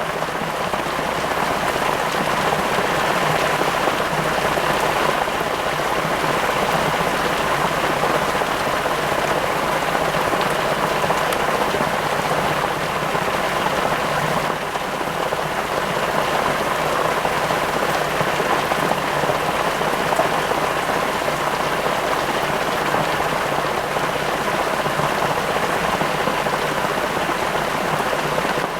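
A steady, even hiss, like rain falling, continuing unbroken throughout.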